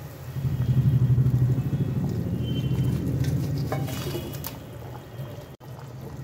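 Fried fish pieces and fried potatoes going into a kadai of simmering fish-curry gravy, with a steady low bubbling throughout. A spoon clinks against the pan a few times about four seconds in.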